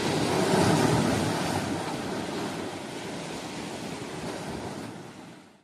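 Waves breaking on a rocky shore with wind buffeting the microphone, fading out near the end.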